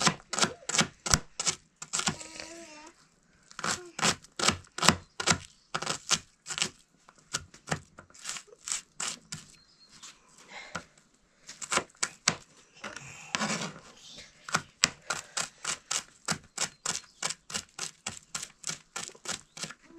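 Knife chopping food on a cutting board: quick runs of sharp knocks, about three to four a second, broken by short pauses.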